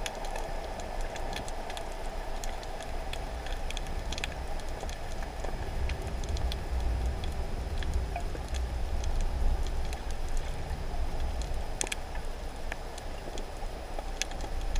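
Underwater ambience: a steady low rumble of water movement, with many scattered sharp clicks and crackles.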